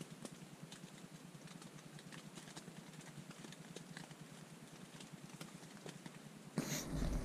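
Rain pattering on a tent's fabric, many irregular small taps of drops. Near the end, a loud rumbling burst of the camera being handled.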